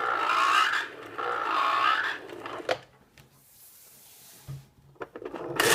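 A 1989 Mattel See 'n Say The Farmer Says toy plays its frog sound through its small speaker: two croaks, the second a little longer, then a click. Near the end comes a brief loud rasp.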